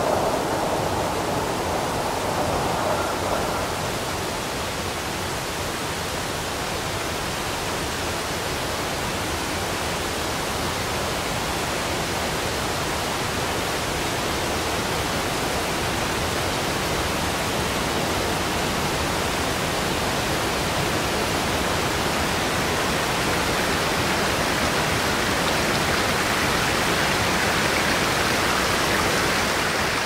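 Steady rush of falling water from a waterfall, an even hiss with no distinct splashes, growing a little louder and brighter near the end.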